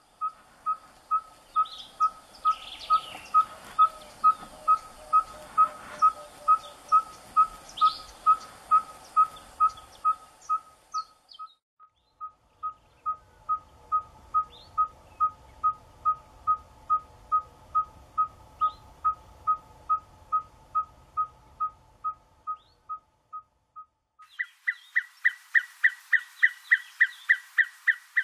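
Red-fronted tinkerbird calling: a long, monotonous series of identical single-pitched notes, about three a second, broken once briefly. Near the end a louder, faster series of higher notes follows, about four or five a second.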